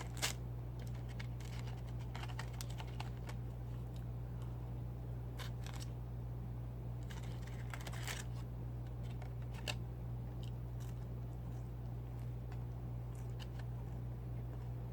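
Person eating fried chicken: scattered small crunches and clicks of chewing and handling food, over a steady low hum.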